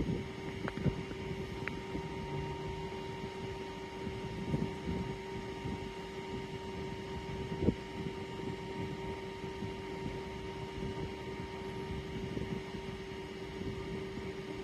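Electrify America 350 kW DC fast charger humming steadily while delivering about 90 kW: a low and a higher tone held over a soft rushing noise, with a few light knocks.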